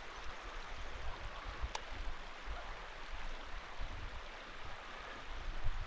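Steady rush of flowing river water, with brief low rumbles now and then and a single sharp tick a little under two seconds in.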